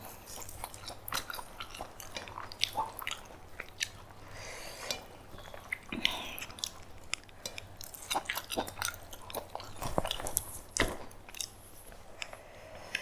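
A person chewing a mouthful of food close to the microphone, with frequent short, wet mouth clicks and smacks.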